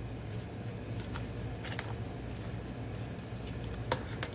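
Pieces of fried bacon broken up by hand and dropped into a metal pot of chili: a few faint crackles and light taps, the sharpest near the end, over a steady low hum.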